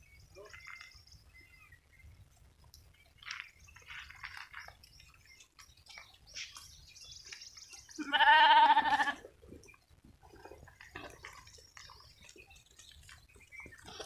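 A sheep bleats once, loud and wavering, for about a second starting about eight seconds in. Faint scattered rustles and clicks fill the rest.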